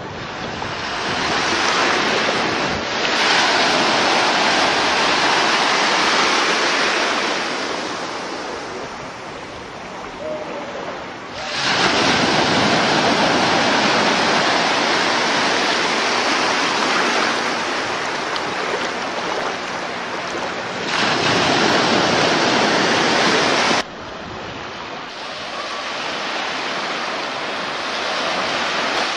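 Surf breaking and washing onto a beach, a steady rush that swells and fades, with louder stretches that start and stop abruptly.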